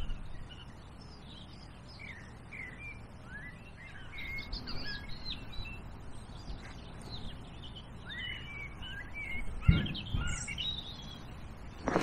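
Small birds chirping and singing: a string of short, varied chirps and calls. A single knock sounds about ten seconds in.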